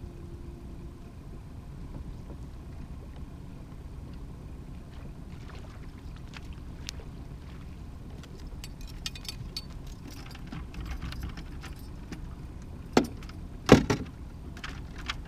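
Steady low rumble of the fishing boat on the water, with scattered small clicks and rattles of rod, reel and net as a kokanee is reeled in and landed. Near the end come two sharp knocks against the boat, the loudest sounds.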